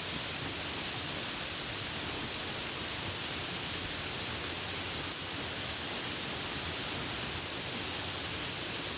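Steady rainfall, an even hiss with no thunder and no change in level.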